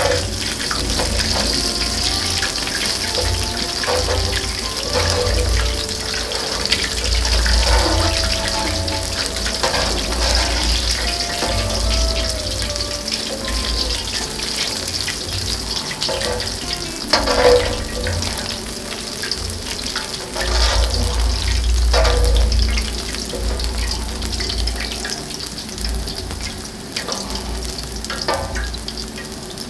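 Breaded mozzarella sticks and cheese balls frying in shallow oil on a round steel griddle plate: a steady sizzle, with a metal spatula scraping and clinking on the plate now and then. A low rumble runs underneath.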